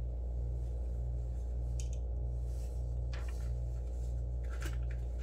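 A steady low hum with a faint regular pulse in it, and a few short, soft rustles as a small earring packet is handled and opened by hand.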